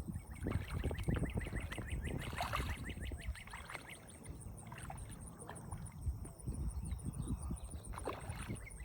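Fish splashing and slurping at the water surface as they take floating feed pellets, a scatter of irregular small splashes, over low wind rumble on the microphone and a faint high, fast, regular pulsing.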